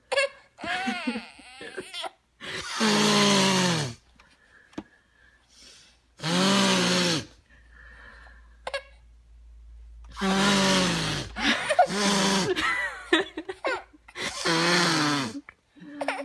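An adult blowing their nose in loud, honking blasts, about five in a row, each a second or so long and falling slightly in pitch. Between the blows the baby makes short, small vocal sounds.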